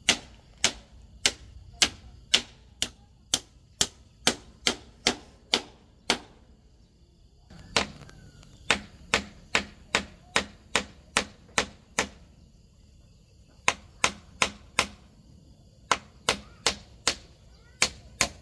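Claw hammer driving nails into a wooden frame to fasten shade netting: sharp blows in runs of about two a second, with three short pauses between runs.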